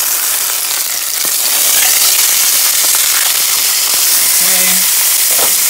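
Steak searing in hot olive oil in a pan: a loud, steady sizzle that swells about a second and a half in, as the steak is turned onto its unseared side.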